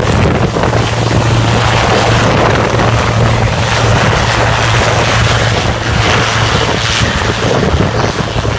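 Helicopter running close by: a steady low hum under a loud rushing noise as its rotor wash buffets the microphone.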